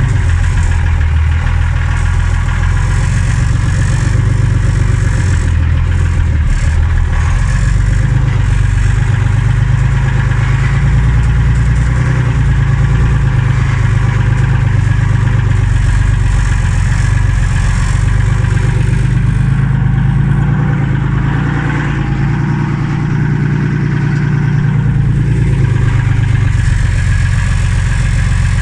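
Unimog 406's six-cylinder diesel engine running steadily while driving, heard loud from inside the cab; it goes briefly quieter a little past two-thirds of the way through.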